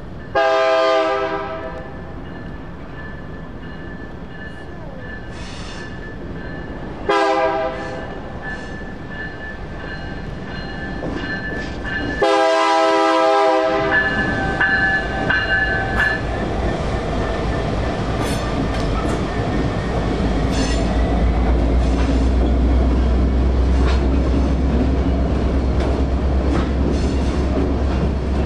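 Union Pacific diesel freight locomotive horn sounding three blasts for the crossing: a long one, a short one about seven seconds in, and a long one about twelve seconds in, over the steady ringing of the crossing signal bells. From about fourteen seconds the locomotive's diesel engine rumbles past, with a deep drone building as it crosses.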